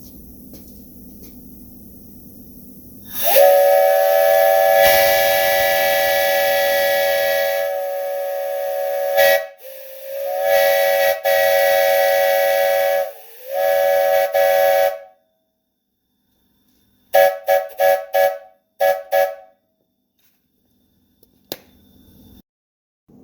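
Restored 2.5-inch Buckeye three-chime whistle blowing a steady three-note chord: one long blast of about six seconds, then two shorter blasts, then several quick toots near the end.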